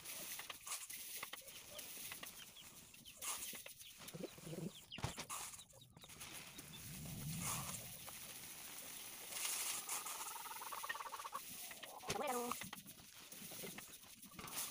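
Puffed rice poured from a steel colander into a plastic jerry can, a soft dry rustle that comes and goes with each scoop. Hens cluck now and then, most clearly about ten and twelve seconds in.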